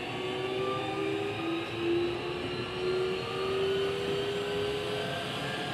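Keikyu 1500 series electric train's Mitsubishi VVVF inverter and traction motors whining, several tones slowly rising in pitch as the train gathers speed, over the rumble of running on the rails.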